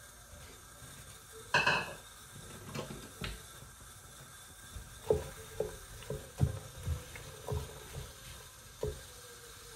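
Metal cookware and utensils clanking. There is one loud, ringing clank about a second and a half in and two softer knocks, then a run of about eight short knocks in the second half.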